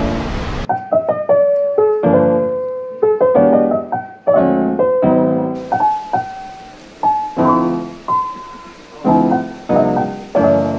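Background piano music: soft repeated chords with a simple melody of single notes on top.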